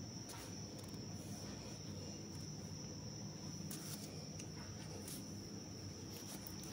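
Faint background noise: a steady high-pitched whine over a low hum, with a few faint clicks.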